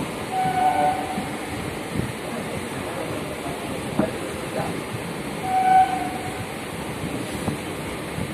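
Electric suburban local train running, heard from inside the coach by an open window: a steady rumble and rush of air, with sharp wheel knocks over rail joints about two and four seconds in. Two short, steady high tones stand out above the rumble, about a second in and again near six seconds.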